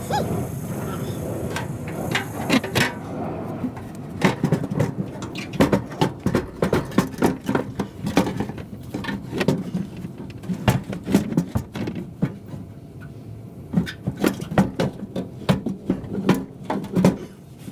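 Irregular clicks, knocks and clatter of hand work on a car's fuel tank mounting, some in quick clusters, with room rumble underneath.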